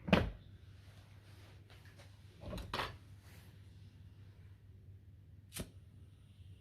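A few sharp knocks and clicks from objects being handled: one loud knock at the start, two more about two and a half seconds in, and a short click near the end, over a low steady hum.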